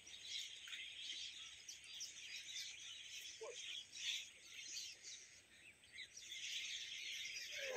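Many birds chirping and twittering at once, a dense, continuous chatter of short high calls, with one lower call about three and a half seconds in.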